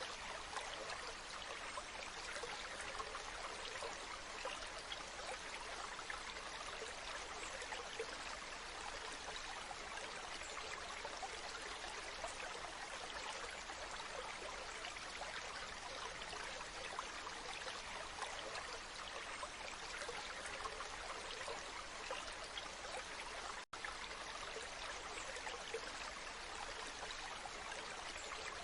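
Waterfall: falling water rushing as a steady, even hiss, cutting out for an instant about 24 seconds in.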